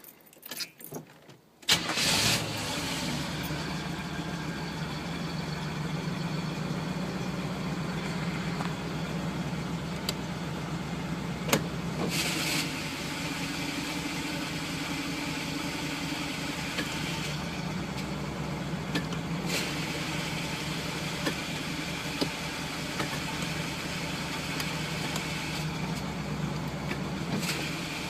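Camaro engine starting about two seconds in, then idling steadily with a grinding noise that the owner suspects comes from the flywheel, starter or torque converter, where the flywheel teeth are slightly chipped. A few brief, louder rasps break through the idle.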